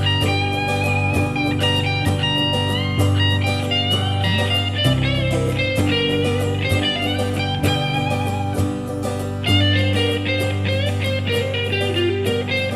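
Band recording in an instrumental stretch: an electric guitar lead with bent, sliding notes over bass and drums.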